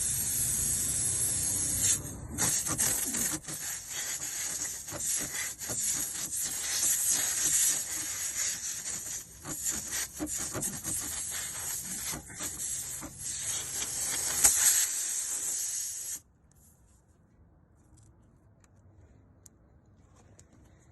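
Harsh hissing and rasping rub from work on a punctured tire. It is steady at first, then goes in irregular strokes, and stops suddenly about sixteen seconds in.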